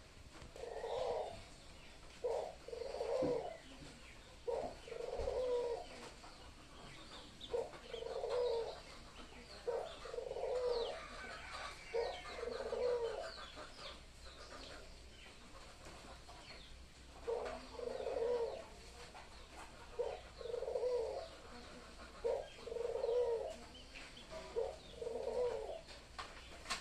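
Australian doves cooing: a short note followed by a longer rolling coo, repeated about every two seconds in two runs, with a pause of a few seconds in the middle.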